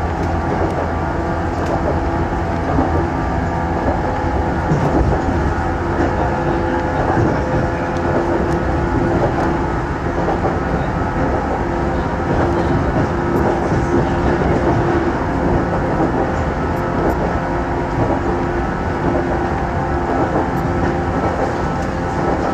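Electric train running along the line, heard from inside the carriage: steady rolling noise with a constant hum.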